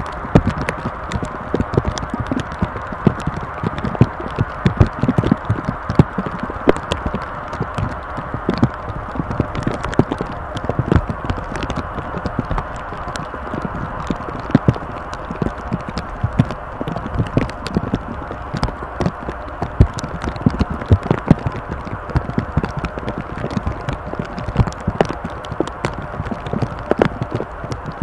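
Steady whine of an Airbus A319's engines, with many irregular knocks and rattles throughout.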